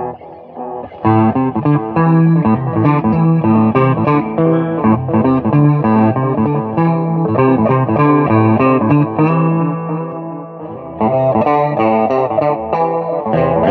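Music led by a distorted electric guitar with effects, playing changing notes. It is quieter for the first second and drops briefly about ten seconds in.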